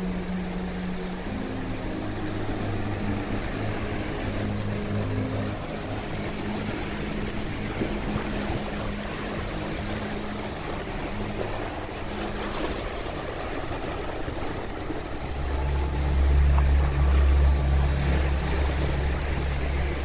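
Small ocean waves breaking and washing up a sandy shore, with a steady low drone underneath that shifts pitch in steps and grows louder in the last few seconds.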